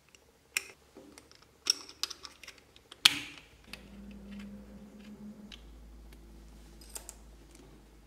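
Clicks and taps of hands handling a small plastic battery box while it is fitted together and screwed shut, with a sharp snap about three seconds in and a few lighter ticks after it.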